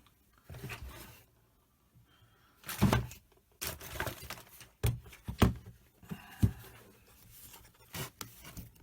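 A series of irregular knocks and thuds, about a half dozen: hard objects being picked up, handled and set down on a workbench.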